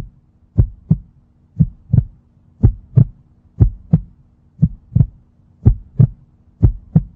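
Heartbeat sound effect: low thumps in lub-dub pairs, about one beat a second, seven beats in all, over a faint steady hum.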